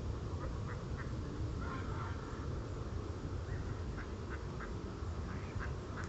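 Ducks on a pond quacking, a scattering of short quacks, some in quick runs of two or three, over a steady low rumble.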